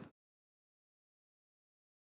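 Complete digital silence: the faint background noise cuts off abruptly just after the start, and nothing follows.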